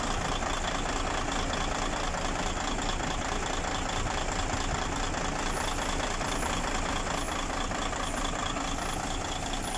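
Mercedes-Benz truck diesel engine idling steadily.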